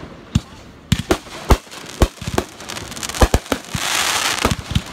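Fireworks going off: a rapid, irregular series of sharp bangs and pops, with a burst of dense crackling about four seconds in.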